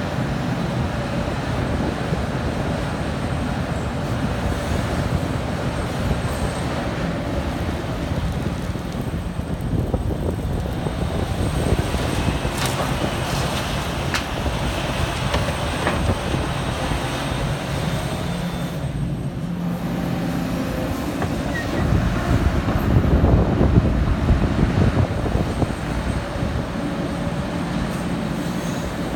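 Liebherr 974 crawler excavator's diesel engine running steadily under load as it digs and loads earth. A few sharp knocks come around the middle, as the bucket dumps its load into a dump truck, and the machine gets louder for a few seconds about three quarters through.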